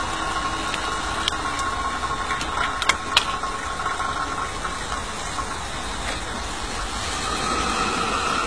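Electric draught fan whirring on the chimney of a miniature live-steam locomotive while steam is raised. It stops with a few sharp metallic clicks about three seconds in as the fan is lifted off. A steady hiss goes on underneath and grows louder near the end.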